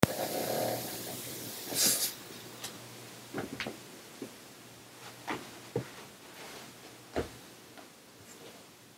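Scattered light knocks and rustles from a person moving about close to the microphone, with a louder rustle about two seconds in, over a faint steady low hum and some hiss at the start.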